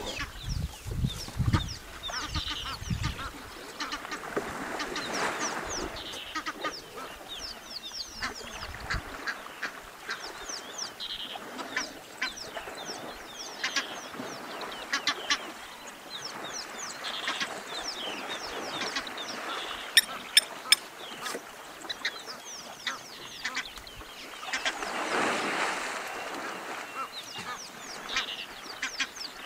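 African elephants splashing and wallowing in a dam, the water sloshing louder in a couple of spells, over many short, high bird calls. Three sharp clicks sound close together about two-thirds of the way through.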